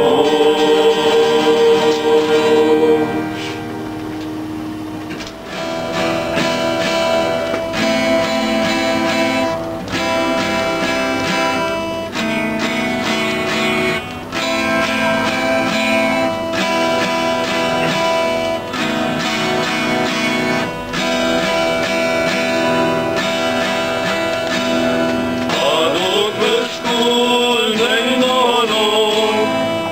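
Male vocal group singing a Romanian Christmas carol (colind) to acoustic guitar. The voices hold a note and stop about three seconds in. The acoustic guitar is then strummed alone for most of the time, and the voices come back in near the end.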